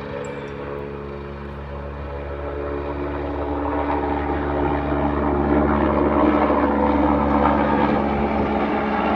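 Air-ambulance helicopter climbing out just after takeoff, its rotor and turbine running steadily and growing louder through the middle of the clip.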